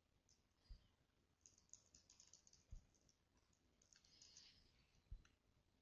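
Faint computer keyboard typing: a quick run of key clicks about one and a half seconds in and a few more near four seconds, with a few soft low thumps.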